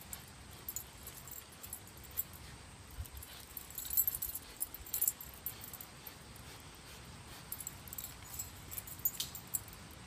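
A dog's chain collar and tags jingling and clinking in irregular bursts as she jerks and tugs on a springpole rope toy, busiest about four seconds in and again near the end.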